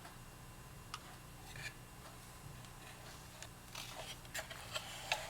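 Faint, sharp clicks and light taps of small hand work on a cuckoo clock's voice pipe as it is unscrewed and freed from the case. A single click about a second in, then the clicks come more often near the end, over a faint steady low hum.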